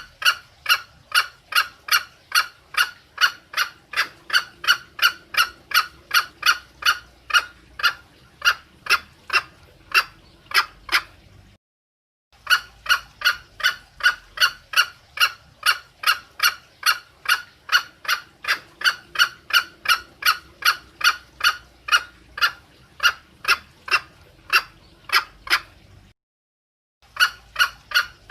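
Green junglefowl hen calling: a fast, even run of short clucks, about three a second, used as a lure call to draw a male. The run breaks off twice into a brief, abrupt dead silence, about twelve seconds in and again near the end.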